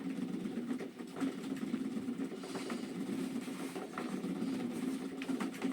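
An exercise machine's electric motor running with a steady low hum, a few light clicks over it.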